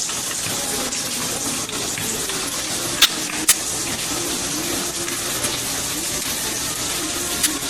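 Steady rushing noise like running water, broken by two sharp clicks about three and three and a half seconds in.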